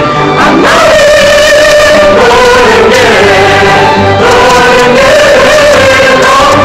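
A group of women and men singing a song together in chorus, loud and sustained, moving from one long held note to the next.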